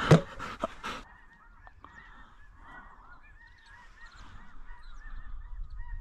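A loud thump and rustle in the first second, then a dense chorus of many geese honking, with short overlapping calls that carry on steadily to the end.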